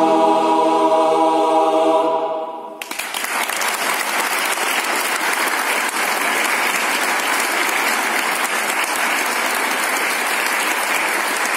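A choir holds a final chord that fades out in the first three seconds, then the audience applauds steadily.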